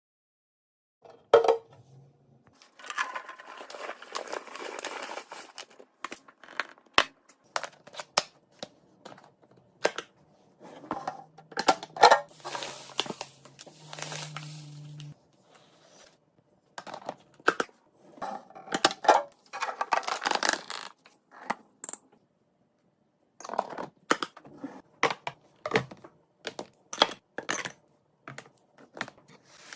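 Restocking sounds of food packaging and containers being handled: many sharp clicks, taps and clinks of hard items set down, with stretches of rustling and pouring. It cuts out to silence twice as one clip gives way to the next.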